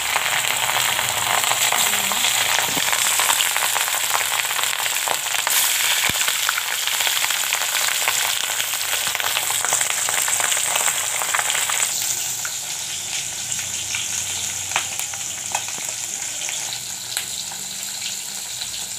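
Pieces of fish frying in hot oil in a kadai: a steady crackling sizzle with scattered pops, easing somewhat about twelve seconds in.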